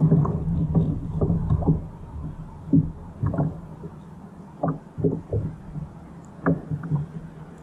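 Irregular knocks and slaps against a plastic fishing kayak's hull over a low steady hum, with a heavier low rumble in the first two seconds.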